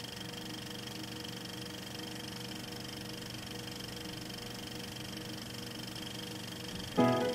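A steady mechanical hum with hiss and a few fixed tones, unchanging throughout. Near the end, music with plucked notes starts.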